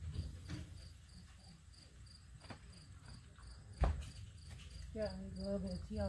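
Faint insects chirping steadily, about three short chirps a second, with a single sharp knock about four seconds in.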